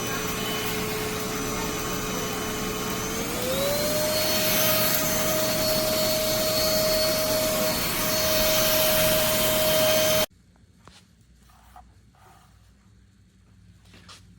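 PINICO cordless stick vacuum running steadily; its motor pitch rises smoothly about a quarter of the way in and stays higher. Then the motor cuts off suddenly, leaving only a few faint clicks.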